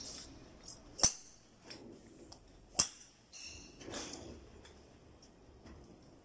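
Golf clubs striking balls at a driving range: two sharp cracks about one second and just under three seconds in, with fainter strikes from other bays in between.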